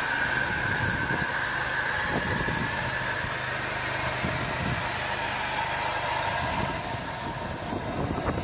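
Lucas swing-blade portable sawmill running steadily, its engine and spinning circular blade making a continuous whine as the saw head is pushed along a large walnut log to cut the first slab (jacket board).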